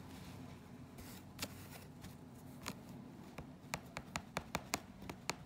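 Sharp clicks and ticks from hand reweaving a rug: fingers and a needle working through taut bare warp threads. A couple of single clicks come first, then a quick run of about nine in the last two seconds.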